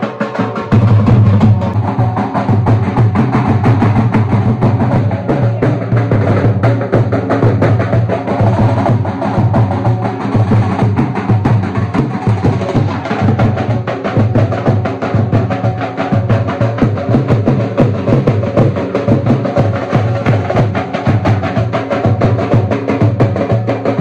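Loud rhythmic drumming music: a fast, even run of drum and wood-like strokes over a heavy low drum beat.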